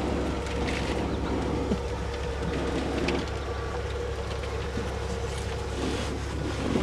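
Safari vehicle's engine idling with a steady low hum, with a few faint rustles.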